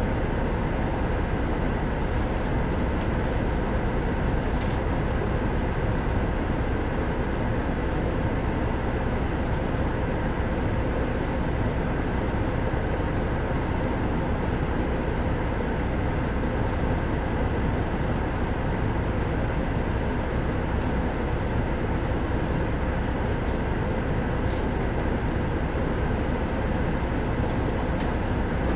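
Steady engine and cabin drone inside a city bus, with the engine idling while the bus stands still.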